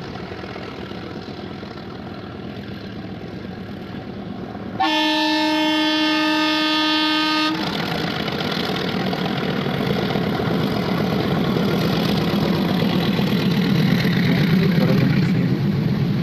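Nilgiri Mountain Railway toy train running, its diesel locomotive sounding one steady horn blast of about two and a half seconds, starting about five seconds in. The running rumble of the locomotive and coaches grows louder afterwards.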